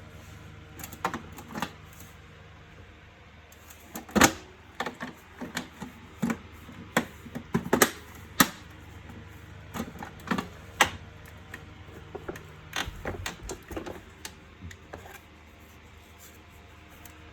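Hard plastic housing parts of a wet-and-dry vacuum cleaner being handled and fitted together: irregular clicks and knocks. The loudest come about four seconds in and about eight seconds in.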